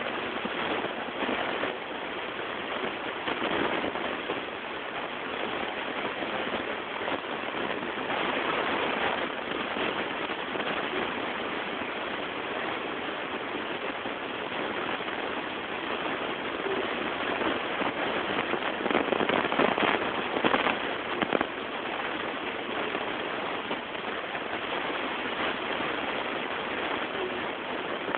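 Steady hiss and crackle of a damaged recording, with no voice coming through: the sound of the reading was lost.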